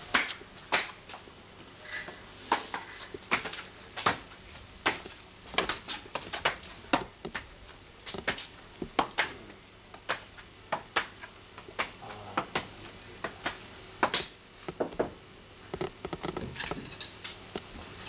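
Irregular sharp knocks and taps, one to three a second: footsteps on stone steps and a large wooden board bumping as it is carried up a staircase.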